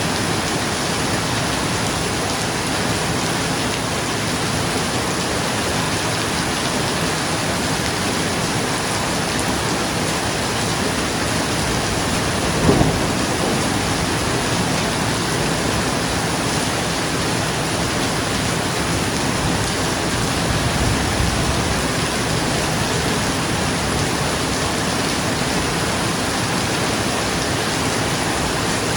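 Steady rain falling on a roof, with a sharp thunderclap about halfway through and a low roll of thunder swelling a few seconds later.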